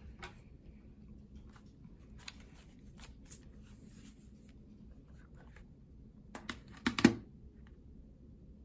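Hands unfolding a white plastic folding Bluetooth keyboard and handling its cardboard box: faint rustling and light clicks. A short run of sharper clicks comes about seven seconds in and is the loudest sound.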